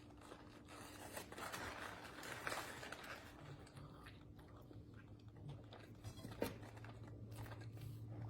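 A person chewing crunchy fried food, faint, with scattered small crackles and clicks over a low steady hum.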